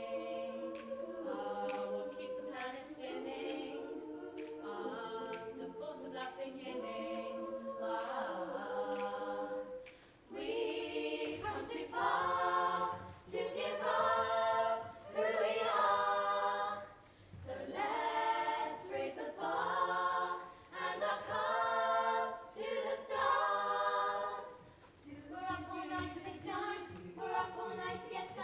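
All-female a cappella group singing wordless parts over short ticks of vocal percussion. Held chords come first, then about ten seconds in the singing turns to loud rhythmic phrases broken by short gaps.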